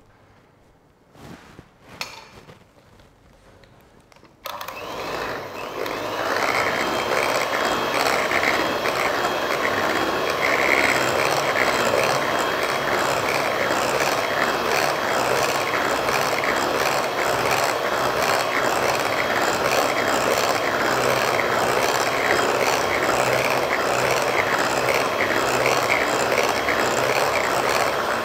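A few light knocks, then a Philips electric hand mixer switches on about four seconds in. It runs steadily with a thin, constant high whine as its beaters whip margarine-and-sugar cake batter in a glass bowl.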